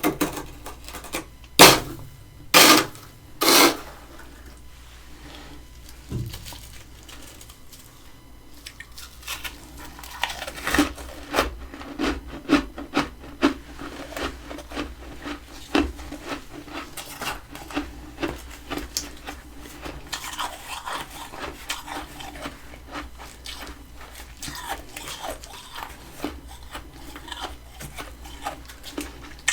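Freezer frost ice bitten and chewed close to the microphone: three loud crunches in the first few seconds, then from about ten seconds in a long run of crackling crunches.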